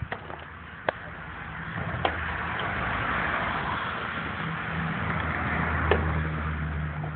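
A motor vehicle going past: a rushing noise swells over a few seconds, and a steady low engine hum comes in about halfway through. A few sharp clicks stand out, the loudest near the end.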